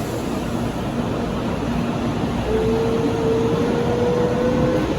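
Train running along the station tracks: a steady rumble with a motor whine that starts about halfway through and rises slightly in pitch.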